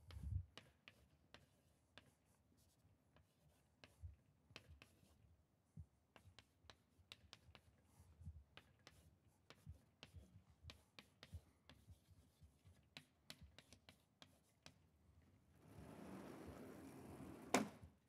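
Chalk on a blackboard: a string of small taps and scratches as an equation is written. Near the end a sliding blackboard panel is moved, a scraping rush of about two seconds that stops with a knock.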